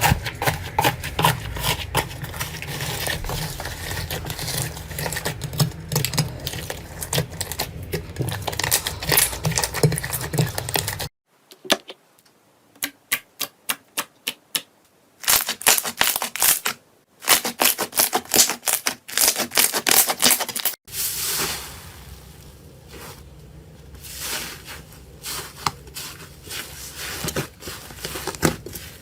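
Slime being pressed, poked and pulled by hand: a rapid run of sticky clicks and crackles. The sound changes abruptly twice, and in the middle stretch the clicks come in separate bunches with quiet gaps between them.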